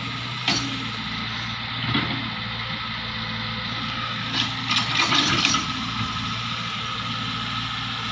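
An engine runs steadily with a low, even hum. Several short, sharp knocks come over it, the loudest cluster about halfway through.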